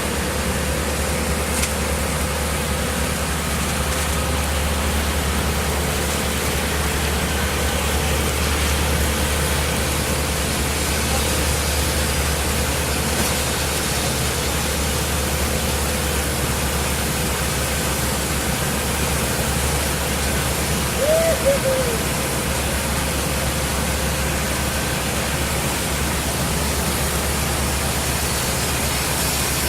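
Steady rushing noise over a low, even engine hum, with one brief short squeak about 21 seconds in.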